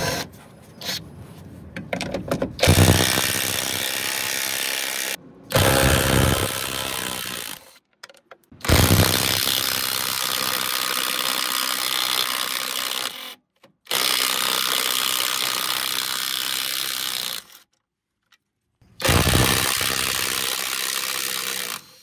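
Cordless impact wrench running in several long bursts, hammering at the bolts that hold a truck's plastic step panel. Each burst starts and stops abruptly.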